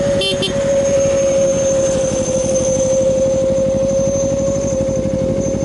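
Motorcycle engine running at a steady speed, a steady high whine riding over its dense low pulsing, with wind rushing past. A brief rattle comes just after the start.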